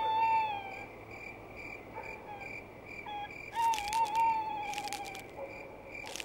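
Night ambience: crickets chirping steadily, and an owl hooting twice, a short hoot at the start and a longer, wavering hoot about three and a half seconds in.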